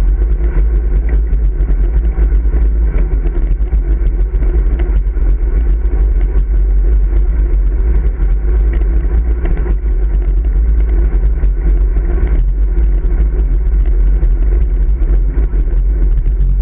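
Steady wind rush on the handlebar-mounted camera's microphone of a road bike riding at speed, with tyre and road noise underneath.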